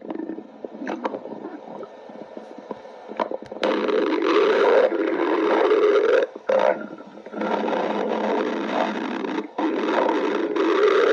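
A hungry stomach growling. It starts with quiet gurgles and crackles, then from about three and a half seconds in come long, loud rumbling growls in several stretches, each broken off by a short pause.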